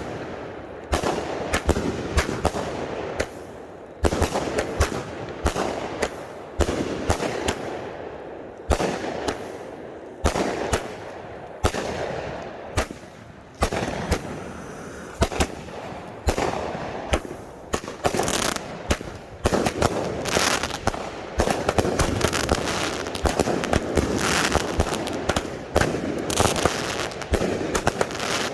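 Consumer firework cakes firing: rapid, irregular bangs of shots launching and bursting, several a second, over a continuous noisy wash.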